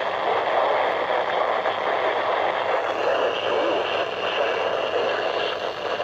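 Steady static hiss from a Midland WR120B weather radio's speaker, tuned to the 162.550 MHz NOAA Weather Radio channel.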